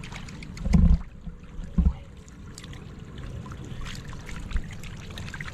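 Shallow water splashing and trickling, with small crackling clicks throughout and two heavy low thuds, about a second apart, near the start.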